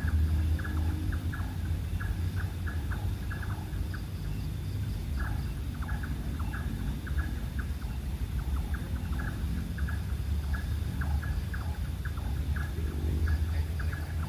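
Animal calls: many short, sharp calls repeating several times a second in an uneven rhythm, over a steady low rumble.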